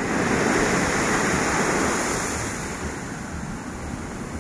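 Surf on a sandy beach: a wave breaks and washes up the sand, swelling over the first couple of seconds and then fading as it draws back.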